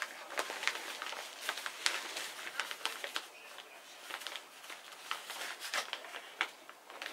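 Potting soil pouring from a plastic bag into a plastic pot, the bag crinkling and grains rustling with many small irregular ticks.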